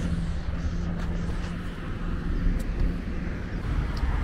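Road traffic on a city highway: a steady low rumble of passing vehicles, with one engine's hum fading away in the first couple of seconds.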